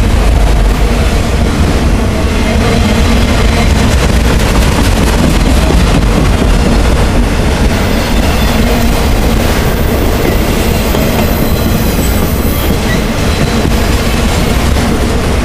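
Multilevel autorack freight cars rolling past: a loud, steady rumble and rattle of steel wheels on the rails.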